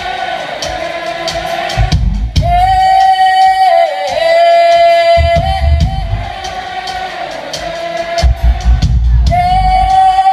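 Live concert music: a singer holds long sliding notes over heavy bass pulses and steady hi-hat ticks.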